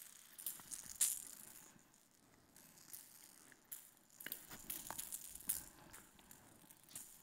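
Blind-tennis bell ball, a soft ball with a bell inside, jingling in short bursts as it bounces on the court and is hit back, the loudest jingle about a second in and a few knocks around four to five and a half seconds in.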